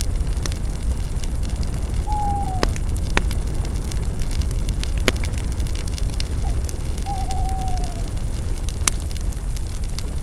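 Campfire of spruce branches burning, with sharp crackles and pops over a low steady rumble. Twice a short, falling whistle-like tone is heard, about two seconds in and again about seven seconds in.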